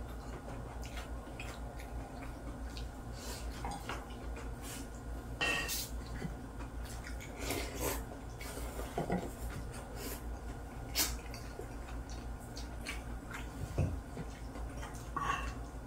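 Spoons, chopsticks and a ladle clinking and tapping against plates and a pot, with scattered light clicks, over a steady low hum.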